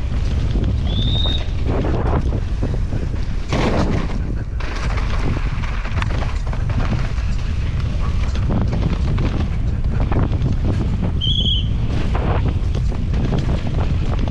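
Wind buffeting the microphone of a camera riding on a downhill mountain bike as it descends a muddy trail, with knocks and rattles from the bike over rough ground. Two brief high squeaks, one about a second in and one near the end.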